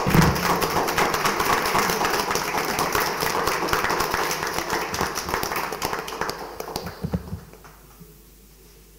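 Applause from a small group of people clapping, dying away about seven seconds in.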